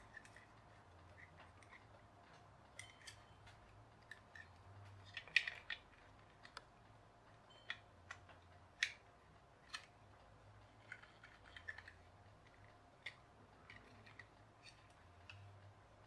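Faint, scattered clicks and light rattles of plastic building-block parts being handled and pushed together, a small motor gearbox turned over in the hands. The sharpest clicks come about five and nine seconds in.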